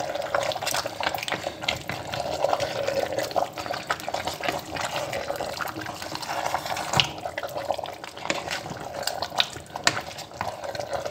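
Wooden spoon stirring thick spinach soup in a stainless steel pot: wet sloshing and squelching of the leaves and stew, with scattered clicks and knocks of the spoon against the pot.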